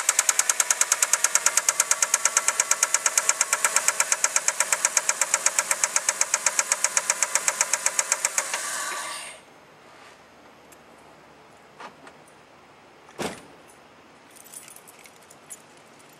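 A fast, even run of sharp mechanical knocks, several a second, that stops abruptly about nine seconds in. After that it is quiet, with a few faint clicks and a single thud a few seconds later.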